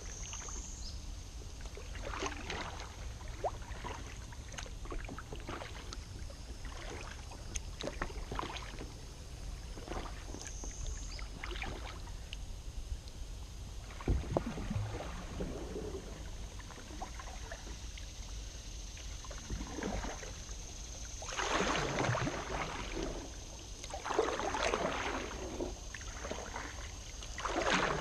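Kayak paddle strokes: the blades dipping in and out of calm water with splashes and drips, the splashes louder and fuller in the last third. One sharp knock about halfway through.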